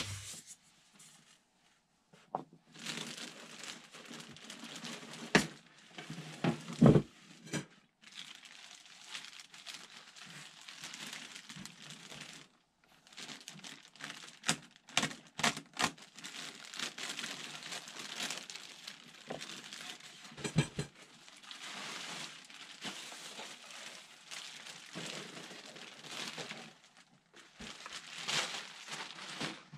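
Clear plastic packaging bag crinkling and rustling as a foam model-airplane part is unwrapped, in long stretches with short pauses. A few sharp knocks come about five, seven and twenty-one seconds in.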